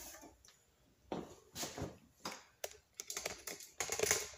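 Irregular light clicks and taps of a removed plastic car grille being handled and turned over, coming more often in the second half.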